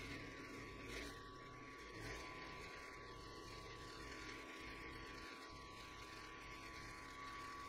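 Benchtop mill-drill running, its 12 mm end mill in an R-8 collet cutting metal plate while the table is fed by hand: a steady high whine over a low hum.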